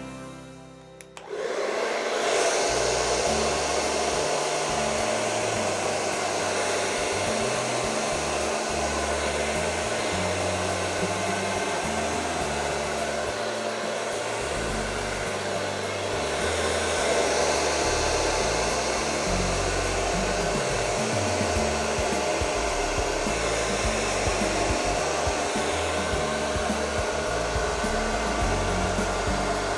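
Hair dryer switched on about a second and a half in, then blowing steadily to push the poured acrylic paint across the canvas.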